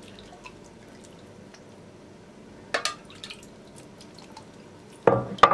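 Milk syrup ladled over a sponge cake in a glass dish, with soft dripping and trickling. A metal ladle clinks sharply about three seconds in, and there are a few louder clinks and knocks of ladle and saucepan near the end.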